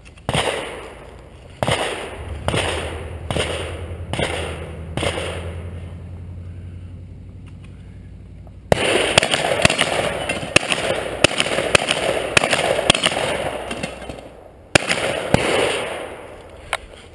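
Shotgun firing about six shots over the first five seconds, each with an echoing tail. A dense noisy stretch full of sharp clicks follows from about nine seconds in, then one more shot about fifteen seconds in.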